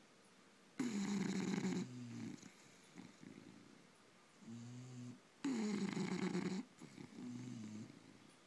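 Sleeping bulldog snoring: two loud snores about four and a half seconds apart, each lasting about a second, with quieter breaths that carry a steady tone in between.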